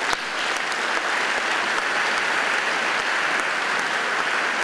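An audience applauding, with steady, dense clapping.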